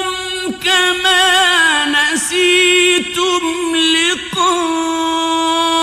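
Male Quran reciter chanting in the melodic mujawwad (tajwid) style: long held notes with wavering ornaments, broken by a few short pauses for breath.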